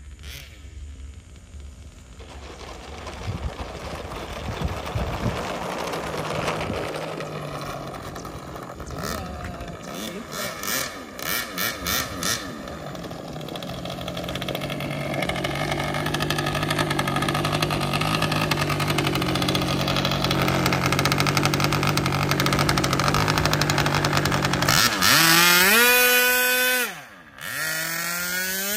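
OS .46 two-stroke nitro glow engine with a tuned pipe on an RC model plane, running at low throttle after landing. It grows louder, gives a few quick throttle blips, and idles steadily while taxiing. Near the end it is revved up to a high, rising whine, drops back, and is revved again.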